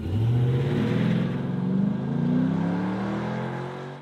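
LS V8 in a Chevrolet C10 pickup accelerating hard, heard through a Flowmaster 50 Series Big Block muffler. The engine note climbs in pitch as the truck pulls away, then fades a little near the end.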